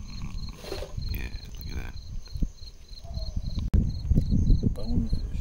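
An insect chirping at a steady high pitch, about three short chirps a second, over irregular low rumbling. A sharp click sounds a little past the middle.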